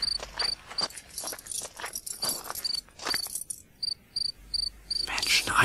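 A cricket chirping steadily, about two to three short high chirps a second, as a night background, with scattered short clicks and scrapes over it.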